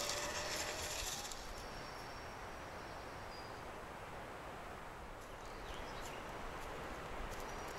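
Quiet forest ambience: a short hissing rustle in the first second, then a low steady background with a few faint thin high tones and light ticks.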